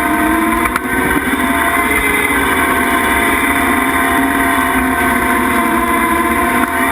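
Skid steer engine and hydraulic brush mower running under load, a steady machine drone whose pitch dips and rises again as it works.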